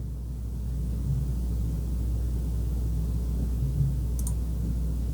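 Steady low hum with faint low rumbling, and one short sharp click about four seconds in.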